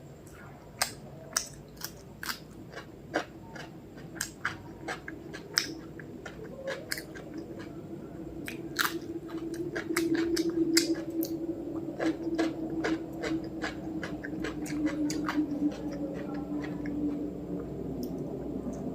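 Close-up chewing and wet mouth sounds of a person eating mutton biryani with chicken and salad, full of quick, irregular crunchy clicks. A low steady hum joins in about halfway through.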